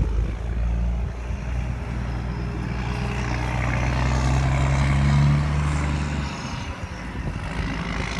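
Combine harvester running in corn harvest: a steady low engine note under a haze of machinery noise. The pitch climbs slightly, then the engine note drops and the sound eases about six seconds in.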